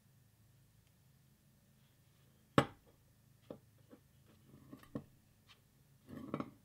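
Steel cross guard and stiletto blade handled on a workbench: one sharp metal clack about two and a half seconds in, then a few lighter taps and clicks, and a short scuff near the end as the guard is set onto the tang.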